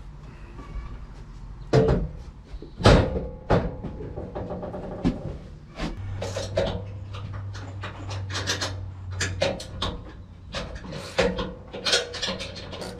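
Knocks and clatter of hand work with timber and metal parts: a few loud thumps early on, then a run of quick clicks and knocks, with a low steady hum for a few seconds in the middle.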